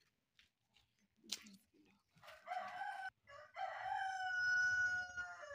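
A rooster crowing: a short first phrase about two seconds in, then a long held final note that ends near the end. A sharp click about a second in.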